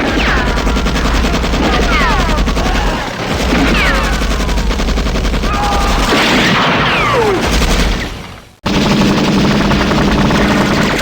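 Battle sound effect: sustained rapid machine-gun fire over a low rumble, with many short falling whistles through the first part. Just past the middle it cuts off abruptly and a second clip of rapid gunfire starts, without the whistles.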